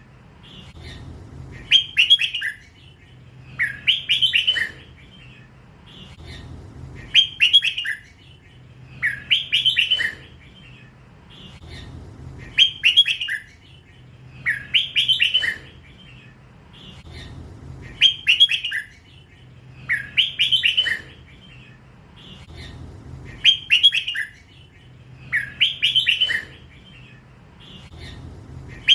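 Young hybrid red-whiskered bulbul, still in its first plumage, singing a short repeated phrase about every two and a half seconds: the drawn-out 'lak wai' song style.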